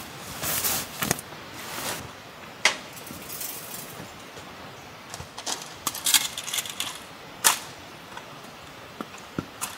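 Fabric rustling, then a scatter of sharp clicks and light clinks from camping gear being handled, with two louder snaps, one about two and a half seconds in and one about seven and a half seconds in.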